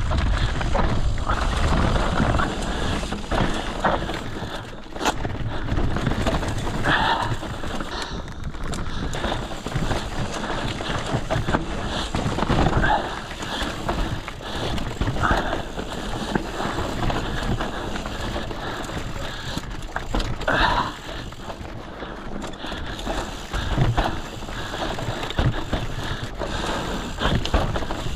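Mountain bike riding a dirt singletrack: tyres rolling over dirt and roots, with the chain and frame rattling and clattering over bumps.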